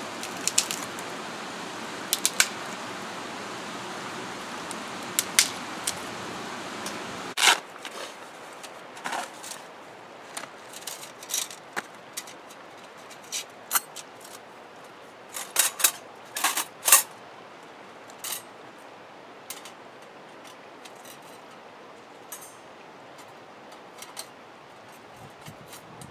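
Rustling brush and a few sharp snaps as dry twigs are broken off for fuel. Then, after a sudden change, scattered light metal clicks and clinks as a small metal twig stove is unfolded and set up on gravel.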